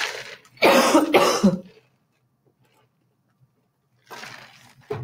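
A woman coughing, two harsh coughs close together about a second in, then a quieter breathy sound near the end.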